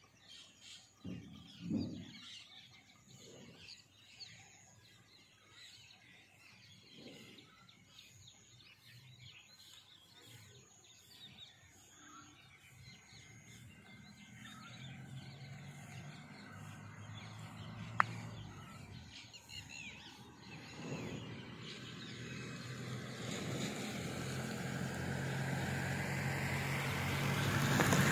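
Birds chirping over quiet outdoor background. From about halfway, a low engine rumble with a steady hum builds and grows steadily louder toward the end, with one sharp click partway through.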